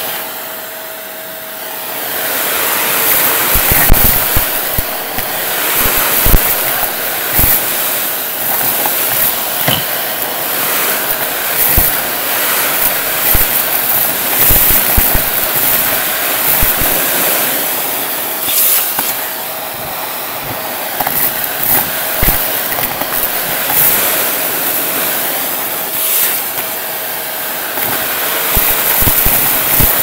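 Shark vacuum running with its crevice tool, a steady loud suction hiss, with frequent sharp clicks and crackles as plastic beads and dry debris are sucked off the carpet and rattle up the hose. The level dips briefly near the start and again about two-thirds of the way through.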